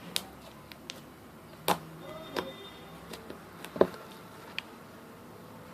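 Homemade blue fluffy slime with little balls in it being squeezed and worked by hand, giving scattered small clicks and pops, the loudest about two and four seconds in.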